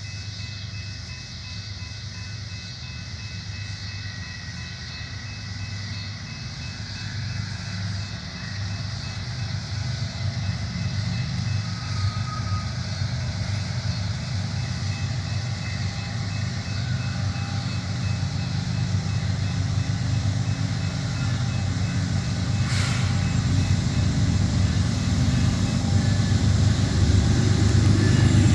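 Union Pacific train rolling along the tracks, a steady low rumble that grows steadily louder as it draws closer, with a faint high steady tone above it and one sharp knock about three-quarters of the way through.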